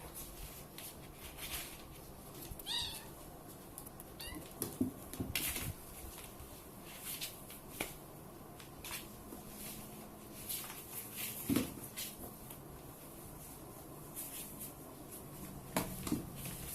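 Two cats play-wrestling: irregular scuffles and knocks of paws and bodies, with a short wavering cat cry about three seconds in.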